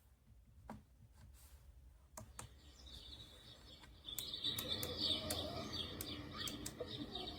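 A moon lamp alarm clock's built-in sound machine playing a birdsong nature sound: chirping that comes in about three seconds in and gets louder about a second later. A few faint clicks come before it.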